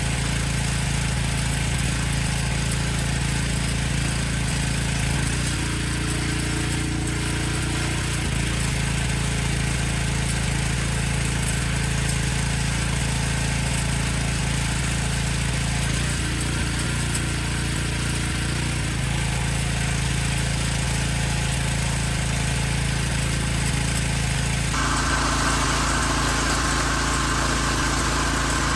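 Engine-driven pressure washer running steadily, with the hiss of the water jet from the spray wand over the engine hum. About 25 seconds in the sound changes abruptly and the spray hiss becomes louder.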